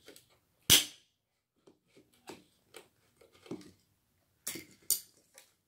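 A soft-drink can's pull-tab cracked open with one sharp pop and a short hiss about a second in, followed by lighter clicks and taps of the can being handled, with two sharper clicks near the end.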